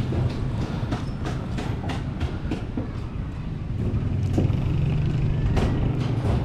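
A motor engine running with a steady low drone that grows louder about four seconds in, with scattered light clicks and knocks.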